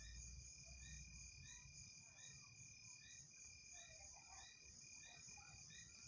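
Faint chorus of night insects: a steady high trill with a short chirp repeating a bit more than once a second, over a low rumble.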